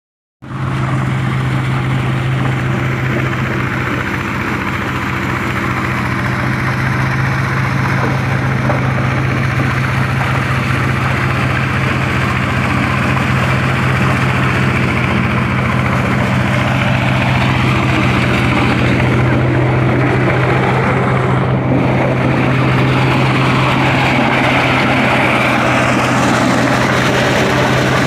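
Motorised double-blower corn sheller running steadily: a constant low engine hum under a steady rushing noise from the machine.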